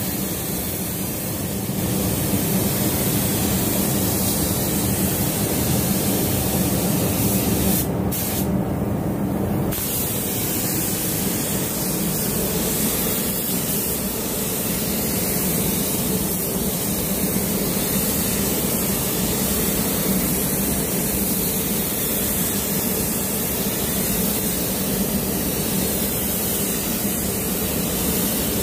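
Compressed-air spray gun hissing steadily as it sprays matte clear coat onto a car body, the hiss dropping out briefly about eight seconds in. A steady low hum runs beneath.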